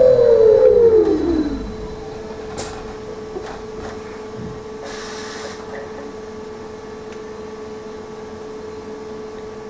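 Trolleybus traction motor whine falling steadily in pitch and fading out as the trolleybus brakes to a stop. It is followed by a steady electrical hum from the standing trolleybus, a few faint clicks and a short hiss about five seconds in.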